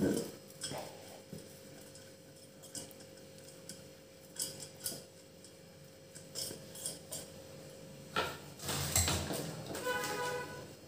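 Silicone pastry brush greasing the inside of a stainless steel cake vessel: light scattered scrapes and taps of the brush against the metal. Near the end a louder clatter of the steel vessel with a brief metallic ring.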